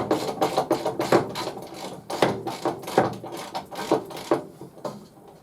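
Rapid, irregular clinks and knocks of small metal workshop parts and tools being handled, several a second, dying down near the end.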